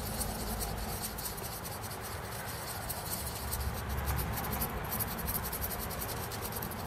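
Fiberglass pen scrubbing back and forth against the metal of a mouse cable's connector to clear corrosion: a rapid, fine scratching, somewhat busier in the middle.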